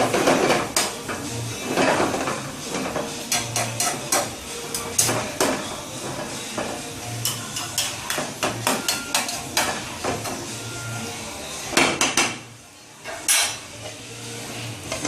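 A metal cooking utensil repeatedly knocking, clinking and scraping against a pot or pan, in irregular strokes with a louder cluster of knocks near the end.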